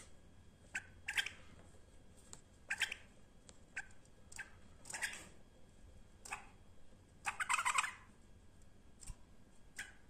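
White-eared bulbul giving a scattered series of short, sharp calls, with a longer run of notes about seven seconds in.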